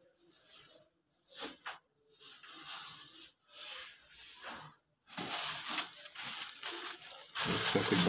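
Plastic bag of sawdust bedding rustling and crinkling in short bursts as it is handled, growing louder and denser about five seconds in.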